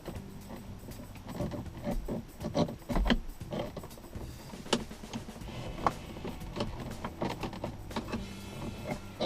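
Plastic dashboard trim being worked loose with a prying tool: a run of irregular clicks, knocks and creaks as the clips give and the panel is handled.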